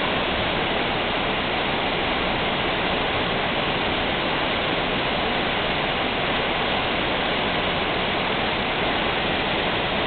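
Waterfall cascading over rocks into a pool: a steady, unbroken rush of falling water.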